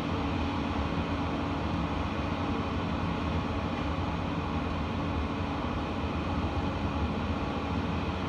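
Hurricane wind and driving rain, a steady, loud rush with no let-up.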